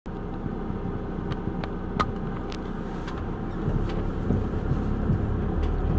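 Delivery van's engine running steadily, heard from inside the cab, with a few light clicks.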